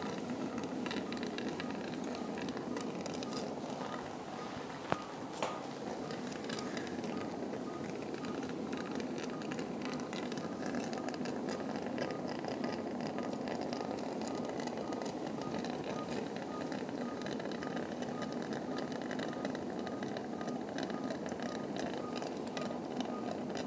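Operating-room background noise: a steady hiss with faint clicks of instruments being handled, and two sharp clicks about five seconds in. From about ten seconds in a faint short high beep repeats at an even pace, the sound of a patient monitor.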